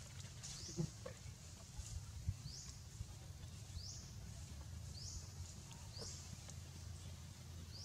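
High-pitched chirping calls, each a quick rising sweep, repeating about once a second over a low steady rumble.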